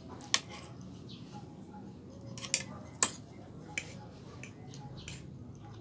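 Fork clinking against a plate as noodles are picked up, four sharp clinks with the loudest about three seconds in, along with soft chewing.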